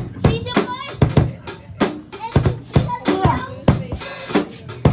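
A drum-heavy music beat, with hits about two or three times a second, and a voice over it.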